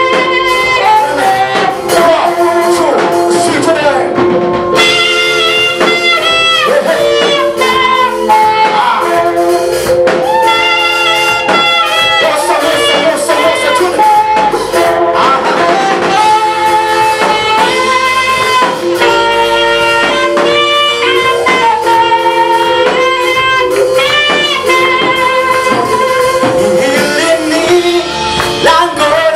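Live praise music with guitar and singing, running continuously.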